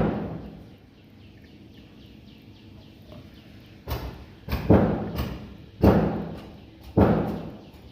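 Hammer blows: one strike at the start, then after a pause of about three seconds five more, one every half second to a second, each with a short ringing decay, as in cutting work done by hammering.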